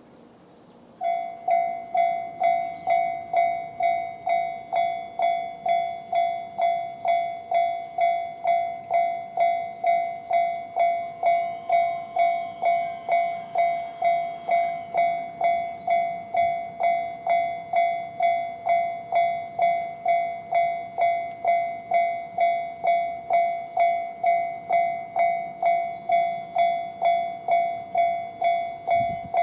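Japanese railway level-crossing warning bell, the JR standard electronic alarm, starting about a second in and ringing one steady tone in even, quickly decaying strokes, about one and a half to two a second: the signal that a train is approaching and the crossing is closing.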